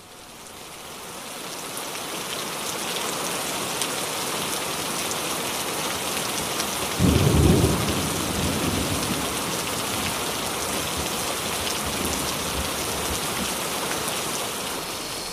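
Steady rain falling, fading in over the first few seconds, with a short low rumble of thunder about seven seconds in.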